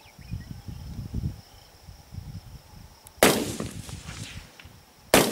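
Two .223 rifle shots about two seconds apart, each a sharp crack with a rolling tail across the open prairie.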